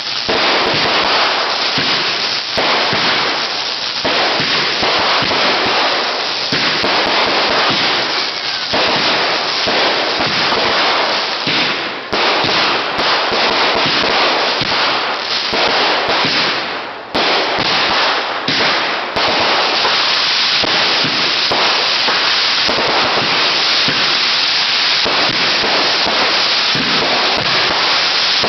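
Consumer fireworks crackling and popping in a dense, continuous stream, with brief let-ups about twelve and seventeen seconds in.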